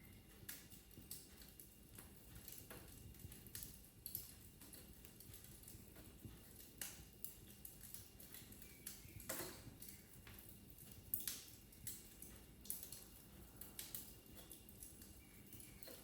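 Wood fire crackling in a fireplace: quiet, irregular snaps and pops over a faint low hiss, with the sharpest snap about eleven seconds in.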